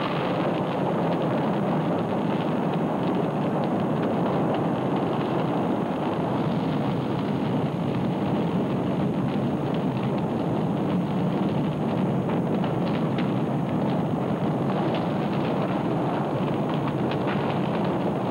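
A steady, dense rumbling noise with no clear rhythm or pitch, loud throughout.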